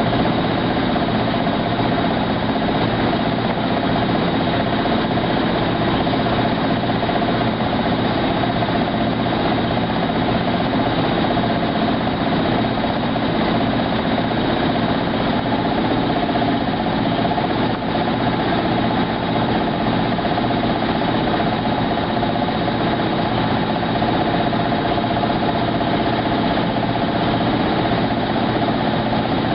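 Maytag SoftMount commercial washer running steadily: an even mechanical hum with several steady tones that hold their pitch throughout.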